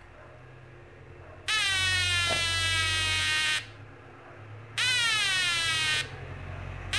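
Homemade rain-detector alarm sounding through a small loudspeaker: a buzzy electronic tone that falls in pitch. It sounds twice, for about two seconds and then about a second, and starts again at the very end. It cuts in and out as water on the sensor sets it off and drains away.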